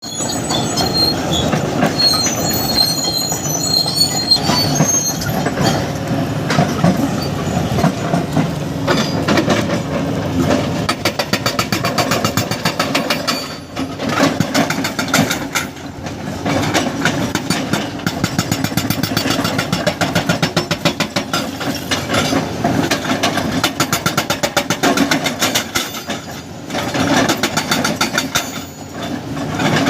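Hydraulic breaker on a Kobelco SK520 excavator hammering, a fast steady run of impacts over the excavator's running engine, stopping briefly a few times. Thin high squealing comes through in the first several seconds.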